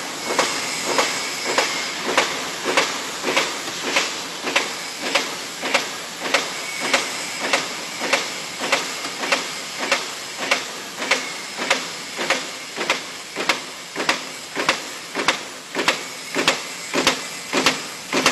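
Sheet-metal punch press punching patterned holes into metal plate: a sharp stamping clack about twice a second, in an even rhythm, over the machine's steady running noise.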